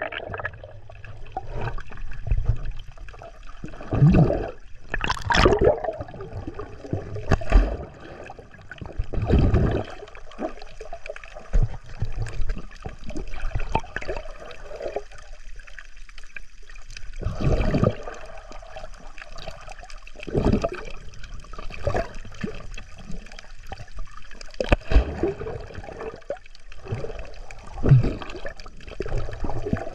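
Seawater splashing and sloshing in irregular bursts every second or two, with a quieter lull about halfway through.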